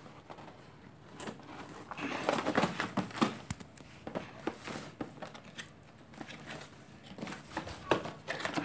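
Cardboard boxes of building-block toy sets being handled and turned over by hand: rustling, scraping and light taps, busiest a couple of seconds in and again near the end.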